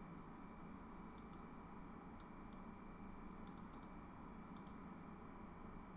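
Faint computer mouse clicks, about nine of them, mostly in quick pairs, over a low steady background hum.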